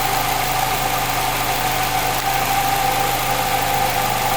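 A 2016 Nissan Rogue's engine idling with a steady whine over its running noise. The owner likens the noise to a dry bearing, though the dealer says it is normal.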